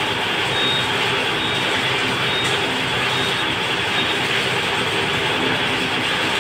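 Steady, even running noise of workshop machinery, with a faint thin whistle coming and going high above it.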